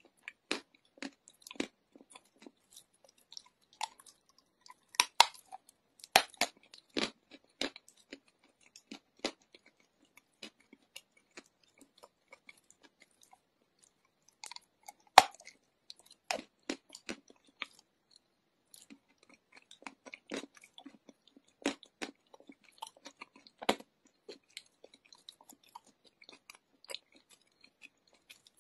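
A person biting and chewing chunks of wet chalk: irregular crisp crunches and crackles, with the sharpest snaps about five, fifteen and twenty-two seconds in.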